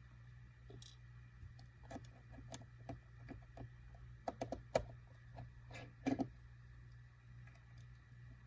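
Faint, irregular clicks and taps of a small screwdriver and tools on the tiny screws and metal parts inside an iPhone 5c as the headphone jack is unscrewed, with a couple of quick clusters of clicks partway through.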